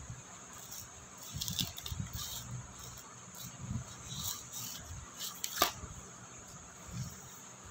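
A small child handling a sheet of paper and a pencil on a floor: soft, scattered rustles and light knocks, with one sharp click about five and a half seconds in.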